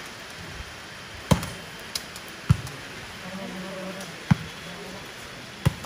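Volleyball being hit back and forth in a rally on an outdoor court: four sharp smacks of the ball, one to two seconds apart.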